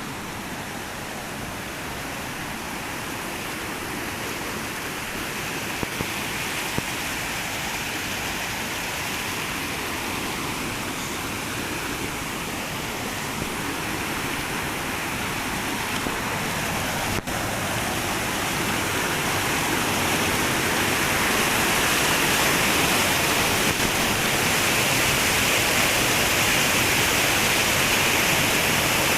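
Flowing water rushing steadily, growing gradually louder.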